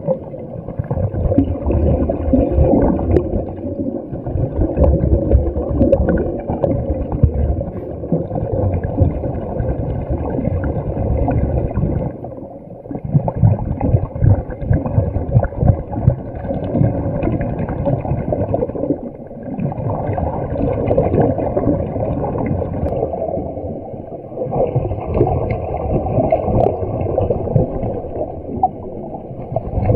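Muffled underwater gurgling and bubbling of a diver's air, heard through an underwater camera. It comes in spells of several seconds with short lulls between.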